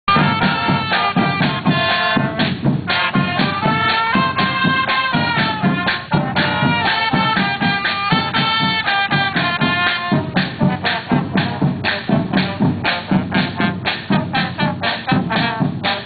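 Marching band playing: trumpets and trombones carry a melody over the drums, then about ten seconds in the brass drops out and the drums keep a steady beat alone.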